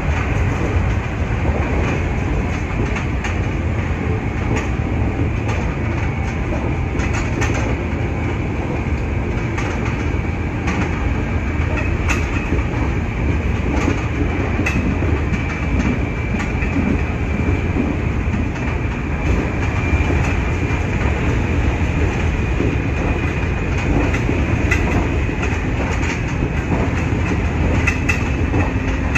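Nankai 8300 series electric train running, heard from the front car: a steady rumble of wheels on rail with occasional clicks over rail joints and a faint high whine partway through.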